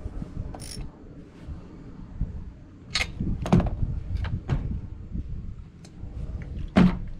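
Handling noises from a small chainsaw and hand tools on a rubber truck-bed mat: a string of sharp clicks and knocks as the spark plug is refitted and a spark plug wrench is set down, with the loudest knock near the end. A low rumble runs underneath.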